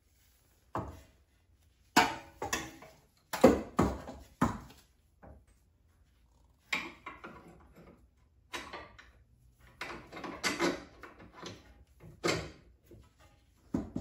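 Irregular metallic clunks and knocks, a dozen or so with quiet gaps between, as a new BC Racing coilover is handled and worked into place in a car's front suspension. The loudest knocks come a few seconds in.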